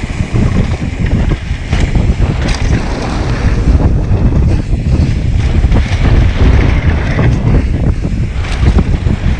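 Wind buffeting a helmet-mounted action camera's microphone on a fast mountain-bike descent, a loud, continuous rumble, with tyre noise on dirt and a few sharp clicks and knocks from the bike.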